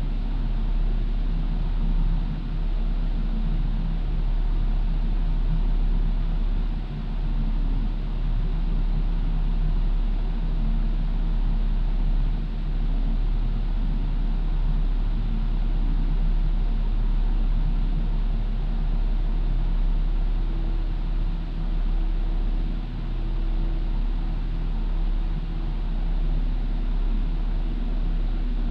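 A 2000 Toyota 4Runner idling through a Flowmaster Super 40 series muffler: a steady, low exhaust drone that holds even.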